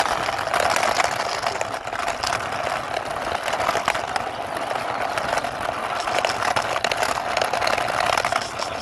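Small plastic toy scooter pushed by hand along a rough concrete wall, its wheels rolling and scraping as a steady noise with many small clicks.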